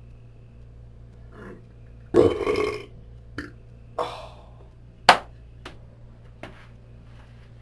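A person's long, loud burp about two seconds in, then a shorter burp about four seconds in, with a few small short sounds and a sharp click about five seconds in. A low steady hum sits underneath.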